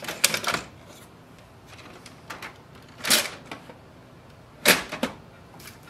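Hard plastic clicks and clunks from an HP LaserJet M234dwe as its toner cartridge is pushed into place and the top section is closed: a few light clicks at the start, a louder clunk about three seconds in, and two sharp clacks near the end.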